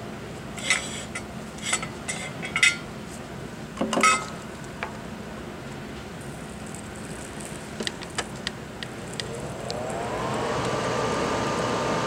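Small hard objects clinking and clicking on a workbench several times. About ten seconds in, a small fan motor spins up with a rising whine that levels off into a steady hum.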